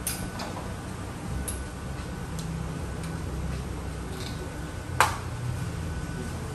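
Light clicks and knocks of espresso gear being handled at the machine, with one sharper knock about five seconds in, over a low steady hum.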